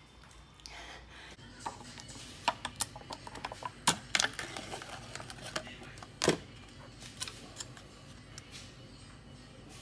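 Foil lid being peeled off a plastic yogurt cup: a run of sharp, irregular crinkles and crackles, loudest near the middle, dying away toward the end.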